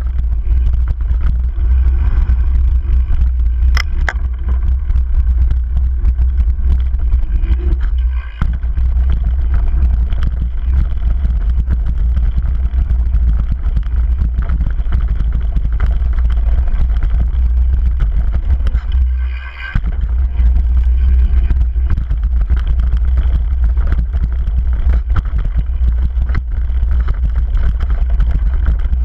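Heavy wind rumble on a rider-mounted camera's microphone during a fast downhill mountain-bike run, with a constant clatter of the bike and tyres over a loose, rocky dirt trail. The rumble briefly drops away twice, about eight and about nineteen seconds in.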